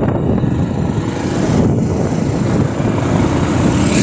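Motorcycle riding along a road: wind buffeting the bike-mounted microphone over the steady low drone of the engine and tyres, with a brief rush of hiss near the end.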